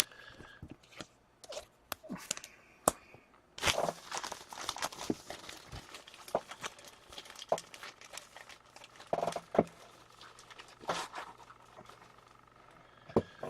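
Hockey trading cards being handled between packs: scattered soft clicks and a few short rustles of cards and wrappers over a faint low hum.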